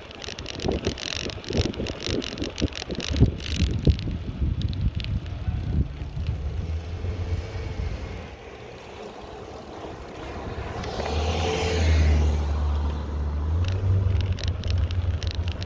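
Bicycle rattling and clicking over the road with wind on the microphone for the first few seconds, then a car passing, loudest about twelve seconds in.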